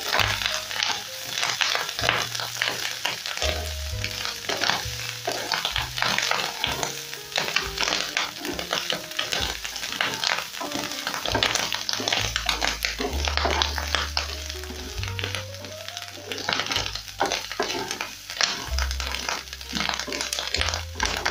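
Pieces of honeycomb tripe sizzling in a little cooking oil in a non-stick frying pan as a wooden spatula stirs them, with many quick scraping strokes against the pan.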